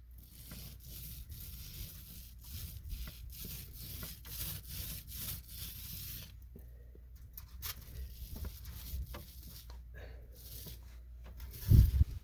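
Repeated rubbing strokes of paint being applied to a bus ceiling, about two a second, pausing about halfway through and then starting again. A loud thump sounds near the end.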